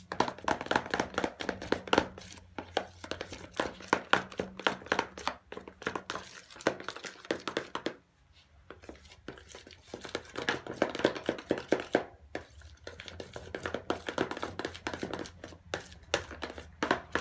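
A utensil stirring and scraping a sticky mix of glue and shaving foam in a plastic bowl, working in the colouring for homemade slime: rapid, irregular clicks and scrapes, with a short pause about halfway through.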